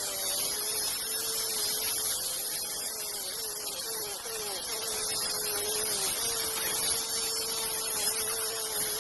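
Electric saw driven by a 0.5 HP motor ripping teak wood: a steady hiss of the cut under a running tone that sags in pitch several times as the blade is loaded, then recovers and holds steadier.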